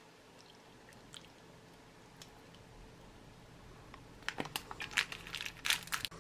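A plastic ration pouch holding biscuits and water crinkling and crunching as it is squeezed and kneaded by hand, a run of sharp crackles starting about four seconds in.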